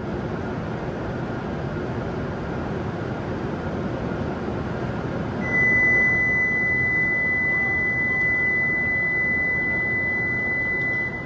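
Steady hum of a W7 series Shinkansen standing at the platform. About five seconds in, a steady high electronic beep starts and holds for about six seconds before cutting off abruptly: a warning tone before the train departs.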